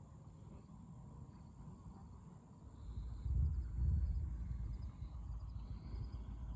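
Faint crickets chirping in short repeated trills, joined about three seconds in by a low, uneven rumble of wind buffeting the microphone, which is the loudest sound.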